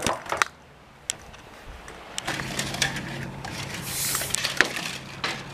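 Handling noise from a hand-held camera being moved, with a few sharp clicks and knocks, and a steady low hum that starts about two seconds in.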